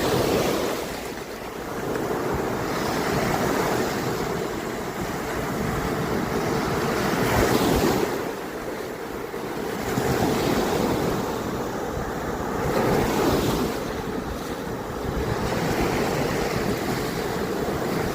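Ocean surf breaking on a beach, the wash swelling and falling back every few seconds, with wind buffeting the microphone.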